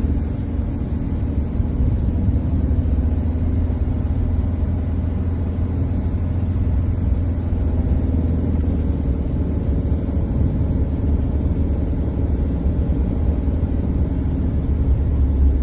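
Car being driven: a steady low rumble of engine and road noise, as heard from inside the cabin.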